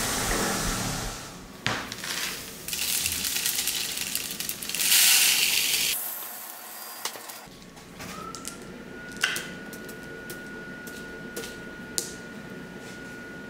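Bench grinder wire wheel whirring down, then a rush of granular tumbling media poured into a vibratory tumbler bowl, loudest about five seconds in. After a short cut, a faint steady whine with a few light clicks as small metal parts are set into the media.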